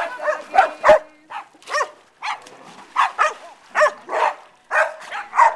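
Dog barking in short, loud barks repeated about twice a second.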